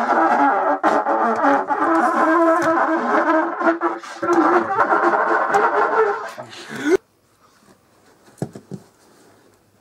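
A trumpet being played, a run of held notes for about seven seconds that cuts off suddenly, followed by a few faint knocks.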